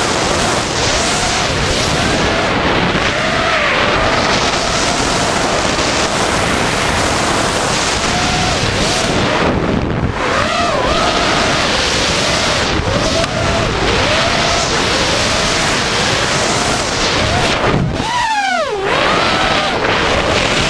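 Onboard sound of an FPV racing quadcopter in fast flight: its Emax RS2205 brushless motors and DAL V2 props whine, the pitch swelling and sinking with the throttle over a rush of wind on the camera microphone. Near the end the whine falls away sharply as the throttle is chopped, then comes back.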